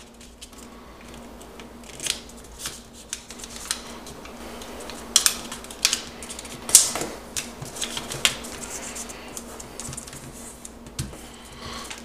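A square of origami paper being folded in half and its crease pressed down by hand on a tabletop: soft paper rustling broken by short, sharp crackles, a few of them standing out. A faint steady hum sits underneath.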